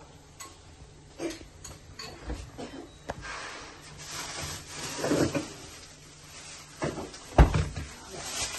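Kitchen handling noises: scattered knocks and clatter with short bursts of hiss, and one heavy thump about seven and a half seconds in.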